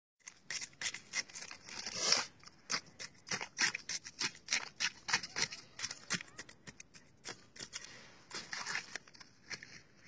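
Knife blade stabbing and chipping at clear lake ice: a quick run of sharp, high clicks, about three a second, with a longer scrape about two seconds in. The strikes thin out over the last few seconds.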